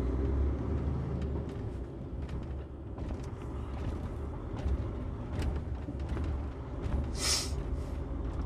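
Articulated lorry's diesel engine running steadily with a low rumble, heard from inside the cab. About seven seconds in there is a short burst of hissing air from the truck's air system.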